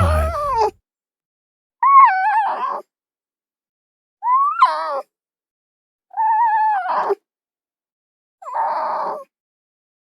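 Domestic sheep bleating: five separate bleats about two seconds apart, each with a wavering, quavering pitch, the last one rougher.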